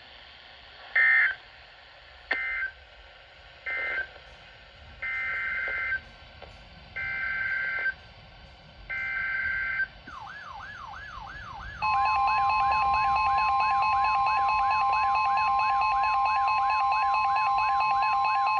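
Emergency Alert System tones: three short bursts of screeching data tone ending the previous alert, then three longer data bursts forming the next alert's header. About ten seconds in a rapidly repeating rising tone sweep starts, and about two seconds later a loud, steady two-tone attention signal joins it.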